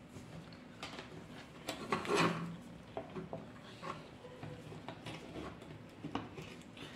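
Light clicks, taps and rubbing as gloved hands handle wires and plug connectors onto a welding machine control circuit board, with a louder scrape and knock about two seconds in.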